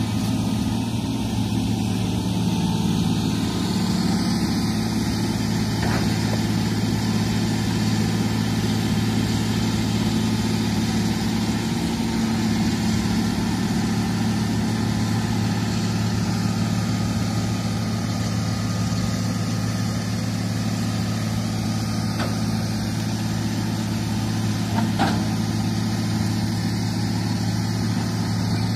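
Hitachi crawler excavator's diesel engine running steadily as the machine digs and swings its bucket, with a few faint knocks.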